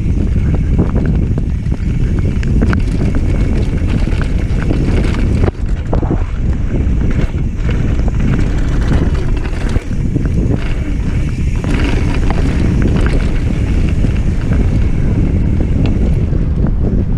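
Heavy wind rumble on the camera microphone as a mountain bike rolls fast down a dirt and gravel trail, with many small clicks and rattles from the tyres and bike over the rough ground.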